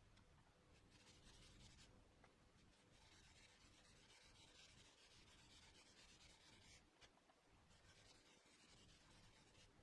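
Very faint rubbing or scraping in several stretches of a second to a few seconds, otherwise near silence.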